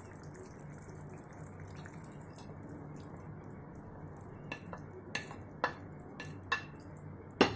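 Fried okra being slid off a plate into gravy in a steel pan: a run of light clicks and taps of the plate and utensils against the pan starts about halfway in, with the sharpest one near the end, over a faint steady low hum.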